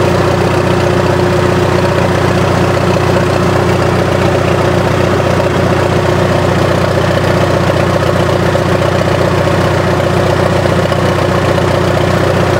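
1943 military generator set's engine running steadily under its governor, with the generator turning. The sound holds an even, unchanging note throughout.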